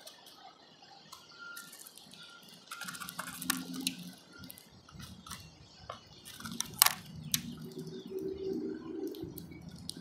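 Small birds feeding at a seed feeder: irregular taps and clicks of beaks pecking at seed and the feeder, with one sharper knock about seven seconds in.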